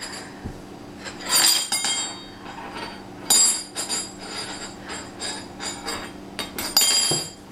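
Dishes and metal cutlery clinking and clattering as a toddler pulls them out of a dishwasher, in several separate knocks with a ringing, the loudest about a second in, about three seconds in and near the end.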